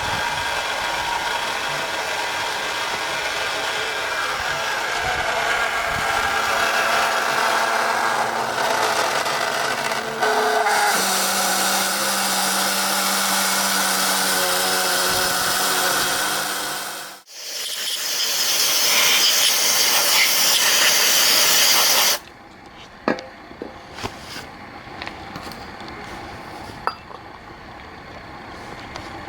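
A small motor-driven tool running steadily, its hum stepping up in pitch partway through, then stopping. A loud hiss follows for about four seconds and cuts off suddenly, then a few light clicks and clinks.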